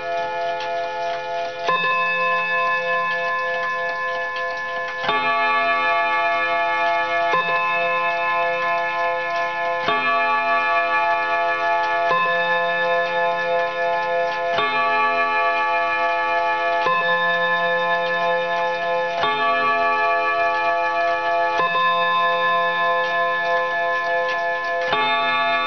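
Juba mantel clock striking the hour on its gong: about ten slow strokes, one every two to three seconds, each ringing on into the next, with the movement ticking underneath.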